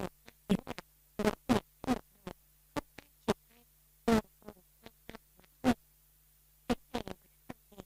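A narrator's voice chopped into short, isolated syllables with silent gaps between them, a garbled, stuttering stream rather than fluent reading. A faint steady low hum runs underneath.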